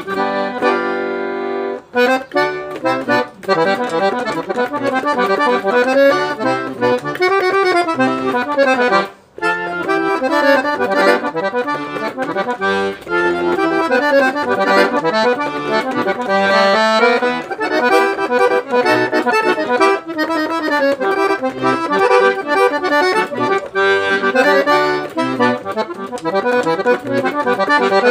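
Accordion (sanfona) playing a lively forró pé-de-serra tune. It opens on a held chord for about two seconds, then moves into quick melodic runs over bass notes, with a short break about nine seconds in.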